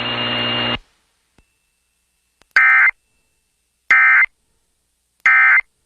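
Emergency Alert System end-of-message data tones (the SAME "NNNN" bursts): three short, shrill, buzzing data bursts about 1.3 seconds apart, marking the end of the weather alert. Before them, a steady radio hiss with a faint whine cuts off under a second in.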